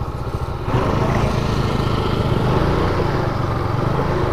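Motorcycle engine running under way; about a second in the throttle opens and the engine gets louder, then holds at the higher level.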